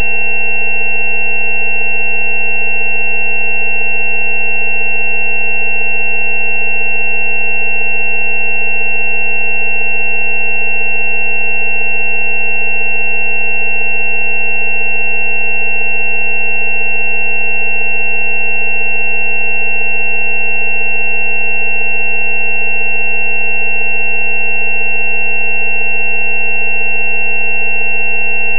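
Synthesized frequency-therapy tone track built on a 190 Hz tone: several steady electronic tones sound together without any change, a high whistle-like tone the loudest above lower hums.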